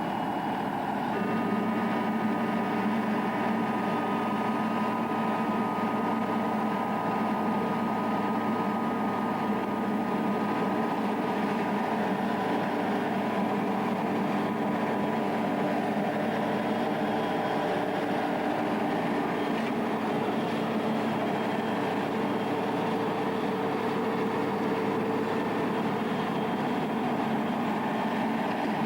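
Self-propelled forage harvester running steadily at work, its engine and cutting gear making a continuous mechanical sound with a high whine that comes in about a second in.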